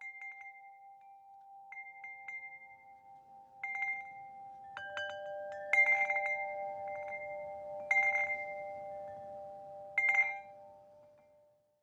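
Chimes ringing: a few clear metal notes of different pitch struck at irregular moments and left to ring on. The loudest strikes come about six, eight and ten seconds in, and the ringing dies away near the end.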